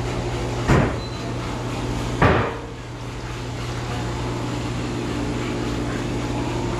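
Two sharp knocks, about a second and a half apart, over a steady low hum.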